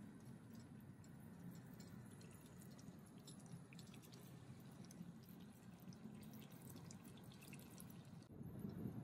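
Faint bubbling and popping of water at a boil in a pot, with a sea cucumber simmering in it.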